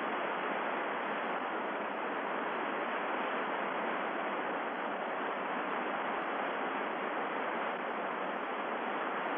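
Steady hiss of the air-to-ground radio channel, thin and band-limited like a voice radio link, with no words passing during a pause in the transmission.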